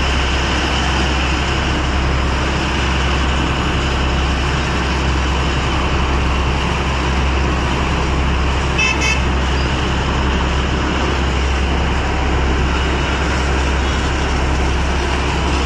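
Fire hose jet spraying foam onto a burning truck, a loud steady rushing hiss over a low steady engine hum. A brief high toot sounds about nine seconds in.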